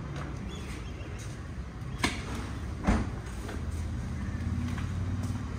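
Soft-shell rooftop tent being flipped open by levering its telescopic ladder: two sharp knocks from the frame and ladder, about a second apart, over a steady low rumble.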